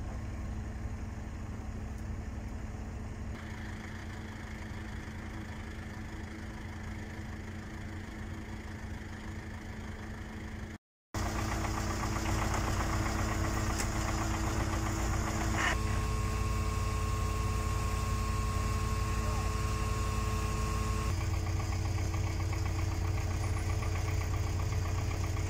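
Heavy work-vehicle engines running at idle, a steady hum that changes abruptly several times, with a brief break about eleven seconds in. A steady whine joins in for a few seconds in the second half.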